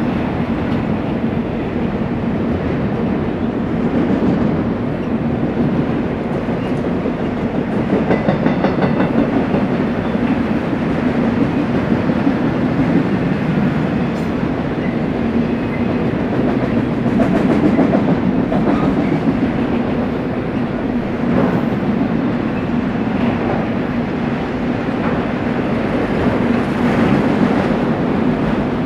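Freight train rolling past on the track: a steady rumble of steel wheels on rail with faint, irregular clicks over the rail joints.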